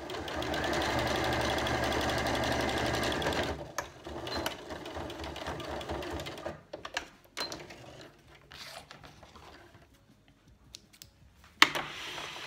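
Janome electric sewing machine stitching at a steady, fast rate for about three and a half seconds, then stopping. After that come quieter clicks and fabric handling as the work is taken out of the machine, with one sharp click near the end.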